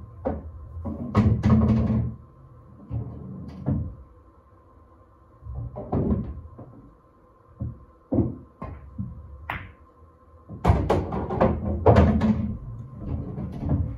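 Pool balls and cue knocking and clacking in several bursts a few seconds apart: cue tip striking the cue ball, balls colliding and rolling, with a faint steady hum underneath.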